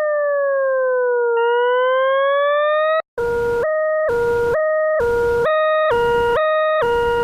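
Electronic siren-like tone that glides down and then back up, cuts out for a moment about three seconds in, then switches to a two-tone hi-lo pattern alternating about once a second, with a burst of hiss on each low note.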